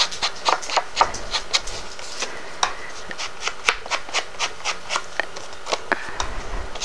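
An ink dauber dabbed and rubbed along the edges of a cardstock panel to ink them, in quick, short strokes about three times a second.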